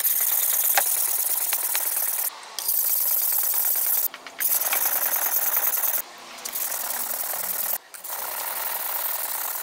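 The steel blade of a 30 cm Tojiro Swedish-steel warikomi gyuto being ground by hand, back and forth on a wet whetstone. It is a continuous gritty scraping in four long runs, with short pauses about two, four, six and eight seconds in. This is repair grinding to bring the hard steel core back out to the edge.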